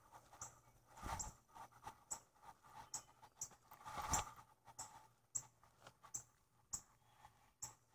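Footsteps on grass and dirt with leaves rustling: soft, irregular scuffs about two or three times a second, and two louder rustles about one and four seconds in.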